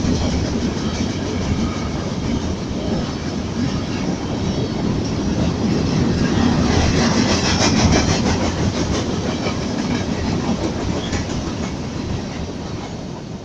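Freight train cars passing at full speed, their wheels clattering rhythmically over the rail joints. The noise swells about eight seconds in, then fades near the end as the train moves away.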